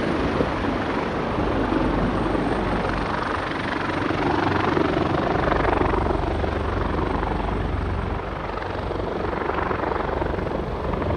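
Police helicopter flying overhead, its rotors and engines running as a steady chopping drone that swells slightly about halfway through.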